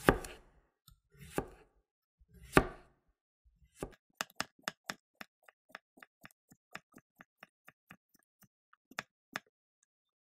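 Chef's knife slicing a cucumber on a wooden cutting board. Three heavy chops come in the first few seconds, then a quick, even run of light knife taps, about four a second, which stops shortly before the end.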